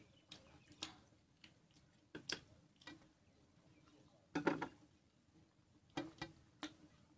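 Eating by hand: scattered faint clicks and smacks from chewing and from fingers working food on steel plates. About halfway through, the loudest sound is a small dish clinking as it is set down on the glass-topped table.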